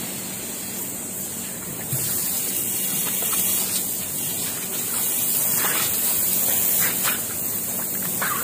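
Water jetting from a garden hose's pistol-grip spray nozzle and splashing on a tiled floor: a steady hiss that steps up louder about two seconds in.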